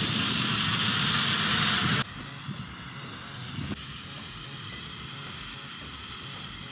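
Toy quadcopter drone's propellers and motors running as it hovers, a steady hissing whine with a high tone. About two seconds in, the sound drops suddenly to a quieter, thinner steady whine.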